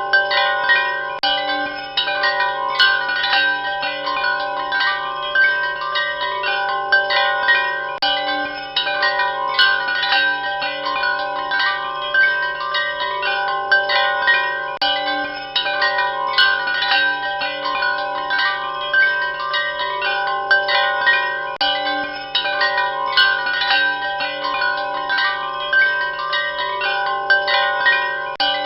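Wind chimes ringing without pause, many tuned tones struck irregularly and overlapping as they ring on, with a faint low hum underneath.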